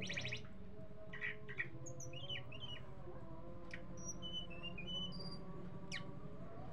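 Caged tledekan gunung songbird calling: a quick rattling burst at the start, then scattered short chirps, slurred notes and thin high whistles. A steady low hum runs underneath.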